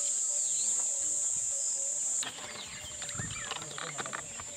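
Steady, shrill insect buzz with birds chirping over it. About two seconds in the buzz drops and becomes quieter, and the chirps and small clicks grow more frequent.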